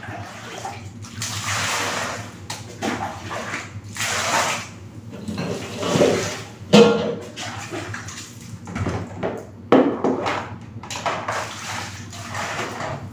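Water scooped and poured from a plastic dipper, splashing into a plastic basin and onto a wet concrete floor in repeated pours during dishwashing, with a couple of sharp knocks about halfway through.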